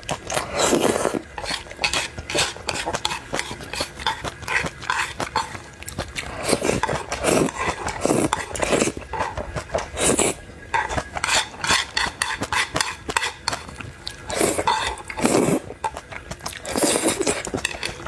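Close-up eating sounds: noodles slurped up in strong bursts every few seconds, with wet chewing and chopsticks clicking against the plate in between.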